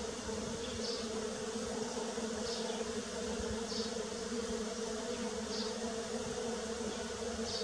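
Bees buzzing in a steady, even drone. A faint short high chirp recurs every second or two above it.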